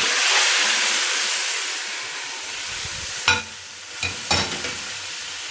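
Meat sizzling as it fries in hot oil in a pot, loudest at first and then easing off. Near the end, the stirring spoon clicks against the pot three times.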